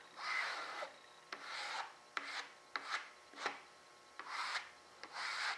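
A resin spreader rubbed back and forth over resin-wet fiberglass cloth, working a second coat of resin into the weave to fill the pinholes. About seven short rubbing strokes, a few with a sharp click.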